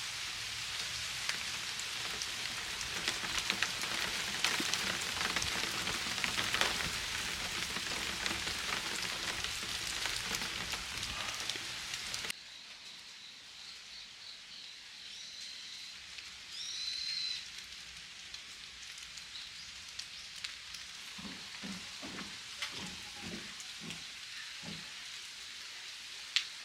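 Steady rain pattering with a dense crackle of drops. About twelve seconds in it cuts off suddenly to quieter forest ambience, with a bird chirping briefly and then a few soft thuds.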